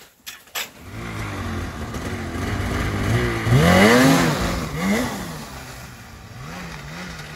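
Polaris Khaos snowmobile's two-stroke engine coming in about a second after a couple of short knocks, then revving hard, rising and falling steeply in pitch twice as the sled pulls away through deep snow, before easing to a lower, wavering throttle.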